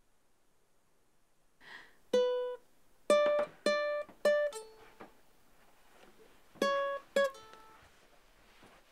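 Ukulele strings plucked one at a time, single notes at slightly different pitches, as the instrument is checked for tuning: five notes, a pause of about two seconds, then three more.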